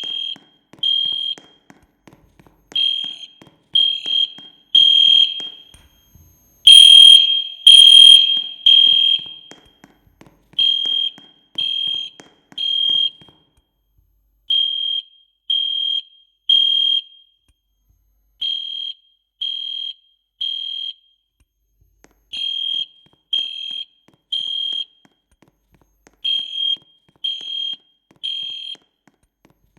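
Fire alarm going off in the three-beep evacuation pattern: groups of three loud, high-pitched beeps, each group followed by a short pause, repeating steadily. The group about a quarter of the way in is the loudest. It is a false alarm: by the uploader's account nothing set it off.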